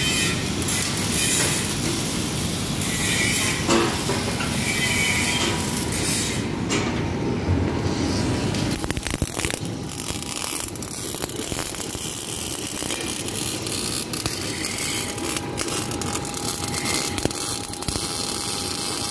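Arc welding on steel: several welders working around the shop, then a wire-feed (MIG) welder's arc up close on steel plate, a steady noisy hiss throughout.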